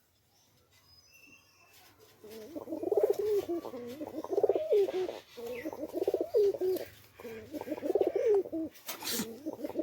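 Domestic pigeon cooing: about two seconds in, a run of low, rolling coo phrases begins, repeating every second or so. A few faint high chirps come before it, and a brief noisy burst sounds near the end.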